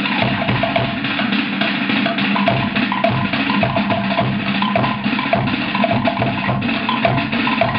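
Cook Islands drum ensemble playing a fast, steady rhythm: wooden slit drums (pate) clattering over deeper drum beats.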